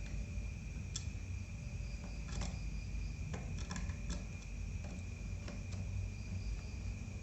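Scattered light clicks and taps of laptop parts and screws being handled as the laptop is reassembled. Under them is a steady high chirring of crickets and a low hum.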